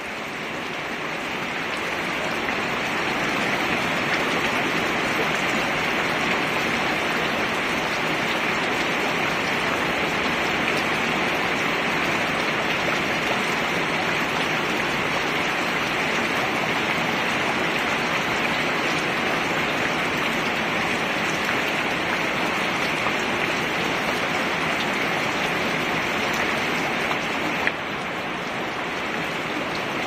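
Heavy rain pattering on a plastic box lid, a dense steady hiss that grows louder over the first few seconds. A single sharp click sounds near the end.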